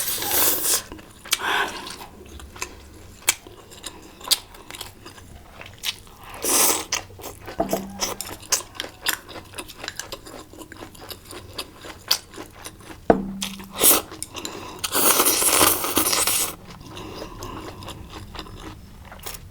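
A person eating into a close microphone: chewing and crunching with many small mouth clicks. Louder noisy bursts come near the start, about six and a half seconds in, and a longer one about fifteen seconds in.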